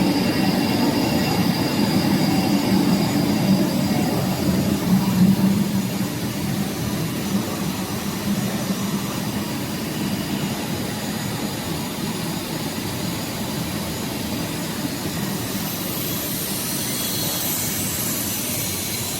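Stainless-steel wire drawing machine running: a steady mechanical hum with a faint high whine, a little louder for the first few seconds.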